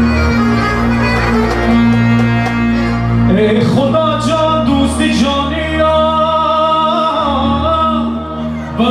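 Live music through a PA: a keyboard synthesizer holds an accordion-like melody over a steady bass, and about three seconds in a male singer comes in with a wavering, pitch-bending vocal line that carries on almost to the end.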